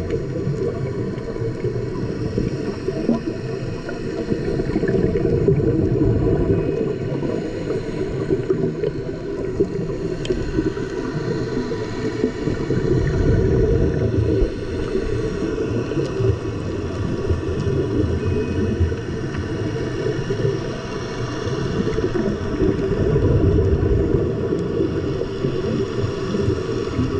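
Muffled underwater rumble picked up through an action camera's dive housing, a steady low wash that swells three times, with a faint steady hum above it.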